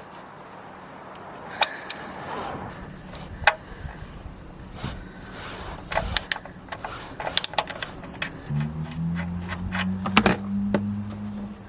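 Scattered metallic clicks and knocks of a spanner and the sump drain plug as the plug is worked loose under the car to drain the engine oil. A steady low hum comes in about two-thirds of the way through.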